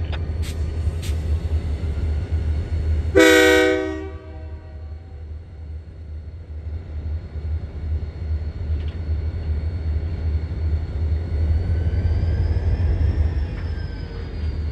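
Diesel freight locomotive's air horn sounding one short blast about three seconds in, over a steady low rumble.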